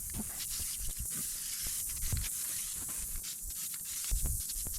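Aerosol can of Rust-Oleum spray paint hissing steadily as paint is sprayed, with scattered light clicks and low thumps.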